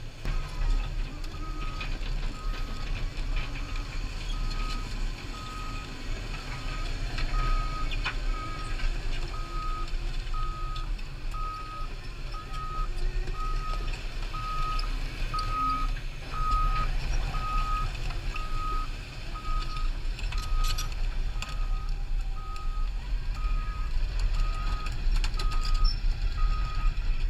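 Cat 329E tracked excavator travelling, its travel alarm beeping about once a second on a single steady tone over the low rumble of its diesel engine.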